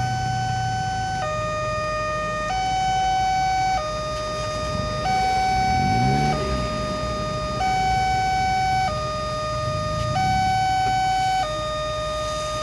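Railway level-crossing warning alarm sounding while the barrier is down: an electronic two-tone signal alternating between a higher and a lower tone, each held about 1.3 seconds. It warns that a train is approaching. About halfway through, a passing vehicle's engine rises and falls in pitch underneath it.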